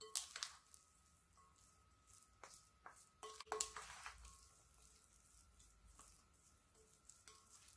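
Faint wet squishing and a few light clicks and taps from a wooden spatula folding seasoned pollock roe in a glass bowl, loudest around the middle.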